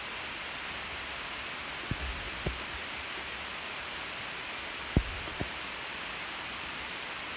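Steady background hiss with a few soft low thumps, the loudest about five seconds in.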